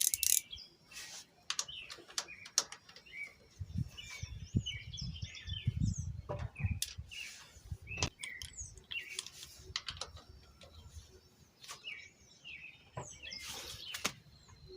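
Small birds chirping in the background over scattered, irregular metal clicks and knocks of a 14 mm wrench working the cam chain tensioner bolt on a 110 cc motorcycle engine.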